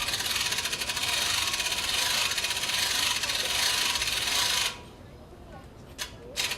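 Small bells rung rapidly together, a dense metallic jangling that stops abruptly about three-quarters of the way through, followed by a few single strikes near the end.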